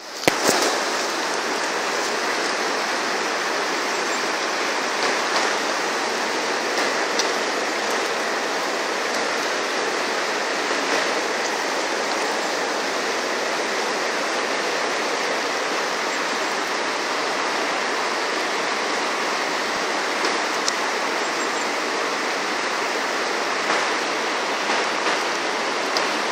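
Steady rushing of a mountain stream running over rocks, an even continuous wash of water.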